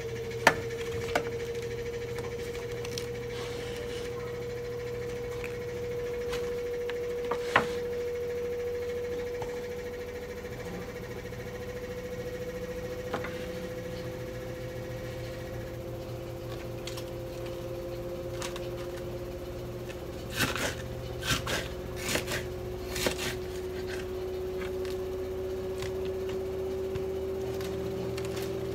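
Knife cutting cabbage on a cutting board: a few sharp knocks spread out, then a quick run of chops about two-thirds of the way in, over a steady mechanical hum.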